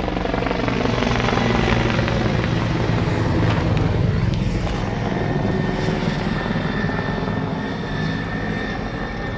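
Firefighting helicopter flying low overhead: a steady rotor chop over the engine's turbine whine, easing slightly near the end as it moves off.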